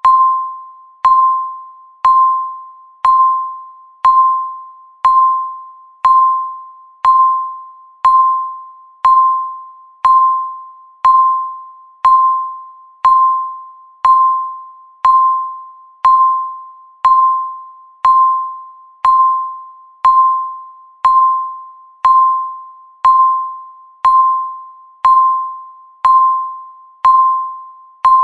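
Countdown timer beep sounding once every second, a single high electronic tone that starts sharply and fades out before the next one.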